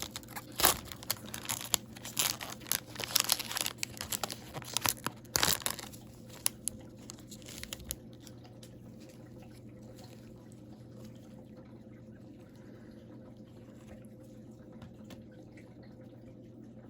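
Wrapper of an Upper Deck hockey card pack being torn open and crinkled, a rapid run of crackles and rips for about the first six seconds, thinning out by about eight seconds; after that only a faint steady hum.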